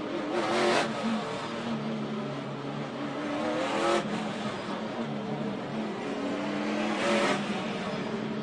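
V8 engine of a NASCAR Cup stock car, heard on board, under race load, with the engines of the surrounding pack running close by. The engine climbs in pitch and drops off about halfway through. It surges louder briefly three times.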